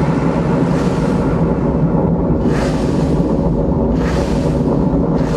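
Loud, steady low rumble with a hissing whoosh about every second and a half.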